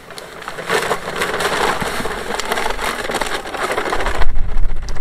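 Powdered lime pouring out of a bag into a plastic vat, a steady hiss with crackling plastic, from about a second in until about four seconds in. Near the end the hiss stops and a loud low rumble takes over.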